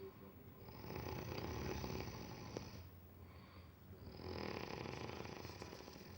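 A sleeper snoring in slow breaths: two long snores of about two seconds each, some four seconds apart, with a softer breath between them.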